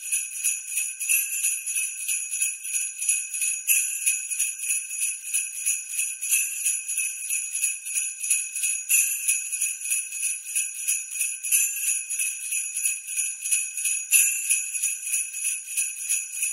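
Sleigh bells shaken in a quick steady rhythm, with a stronger shake about every two and a half seconds and no other instruments.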